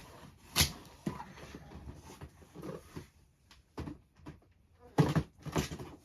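Boxed model kits being handled and set down: cardboard boxes knocking and scraping against each other, with one sharp knock about half a second in and two more near the end.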